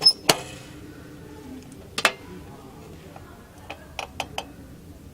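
A handful of short, sharp clicks and knocks over a quiet background: two near the start, a pair about two seconds in, and a quick run of three or four near the end.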